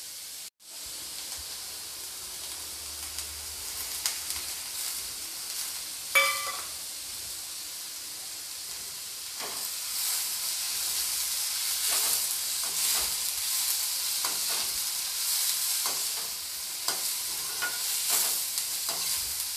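Mixed vegetables and freshly added peas sizzling in hot oil in a kadhai, with a spatula scraping and knocking against the pan as they are stir-fried. A single ringing clink comes about six seconds in, and the stirring and sizzle grow louder and busier from about ten seconds on.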